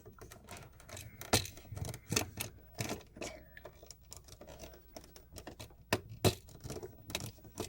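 Irregular small clicks, taps and scrapes of a wire being handled and fitted onto the terminal of an electrical receptacle, with two sharper clicks, about a second and a half in and near the end.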